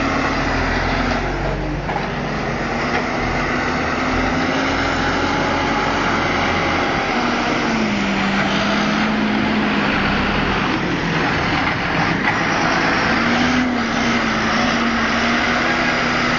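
John Deere 7530 tractor's six-cylinder diesel engine working hard close by as it pushes up grass on a silage clamp. The engine note drops in pitch about halfway through and climbs again later.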